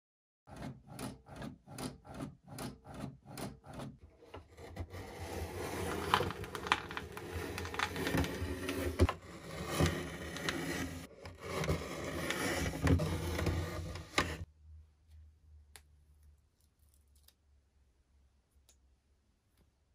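Rotary paper trimmer being worked over a printed label sheet: a quick run of short scraping strokes, about four a second, then a longer stretch of the cutting head scraping and rubbing along its rail, with a few sharp knocks. It stops about two thirds of the way through, leaving only a few faint clicks.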